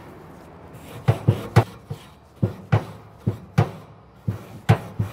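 Stiff wire grill brush scrubbing a pellet grill's metal cooking grate in short, sharp strokes, two or three a second, each with a knock of the brush against the bars. The strokes start about a second in.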